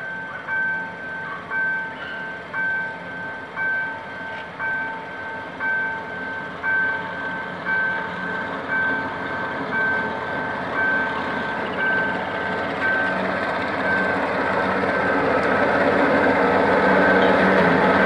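Level-crossing warning alarm beeping in two tones about once a second, while a GM G-22 diesel locomotive hauling a passenger train grows louder and rolls past close by over the last few seconds.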